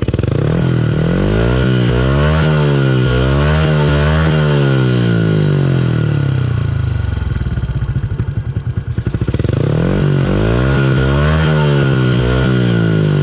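Yamaha Sniper 135 single-cylinder four-stroke engine revved through a Replica Pro aftermarket exhaust: a run of quick throttle blips, rising and falling, that settles back to idle about halfway through and is followed by a second run of blips near the end.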